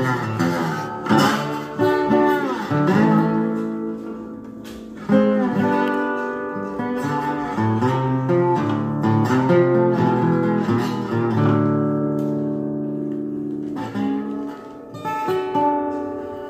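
Epiphone Dobro Hound Dog resonator guitar played solo, picked notes ringing with some pitches sliding up and down into one another; the playing eases off near the end.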